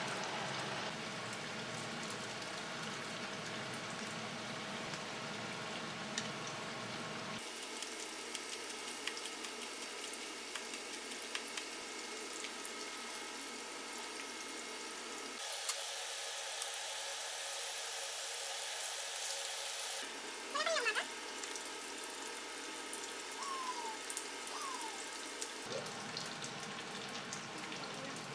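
Tofu slices frying in oil in a pan, a steady sizzling hiss. The sound changes abruptly several times, with quieter kitchen sounds, a few light ticks and a few short high chirps in the later part.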